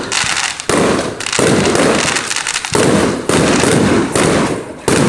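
Aerial fireworks going off in quick succession: a series of loud bangs with crackle, about one every half second to second.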